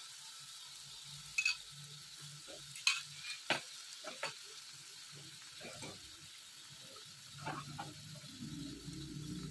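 A burger patty sizzling in a frying pan with a little oil, a steady frying hiss, with a scatter of sharp clicks and taps from a utensil in the pan.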